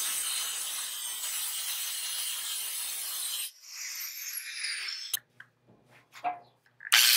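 Angle grinder with a diamond cut-off blade cutting steel flat bar held in a vise, a steady hiss. About three and a half seconds in the blade comes off the metal and the grinder winds down with a falling whine, followed by a click and a couple of light knocks; near the end the grinder starts again with a rising whine.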